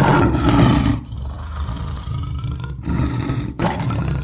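Lion roar sound effect for an animated logo sting. It comes in several loud surges with short breaks between them, over a deep rumble.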